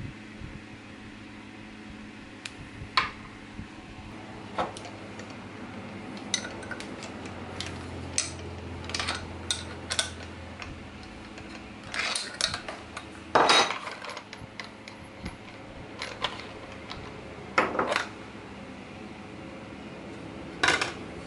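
Scattered metallic clinks and clicks of an angle grinder's disc being changed: a pin spanner working the flange nut and a thin cutting disc being lifted off, with the loudest clanks in the second half.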